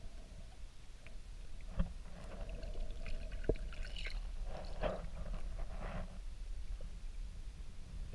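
Underwater sound around resting manatees: a steady low water rumble with a couple of sharp clicks, faint short high squeaks about three to four seconds in, and a rustling swell soon after.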